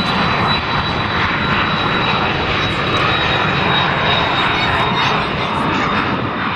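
Cessna Citation business jet's turbofan engines at takeoff power during the takeoff roll: a steady, loud jet rush with a thin high whine held throughout.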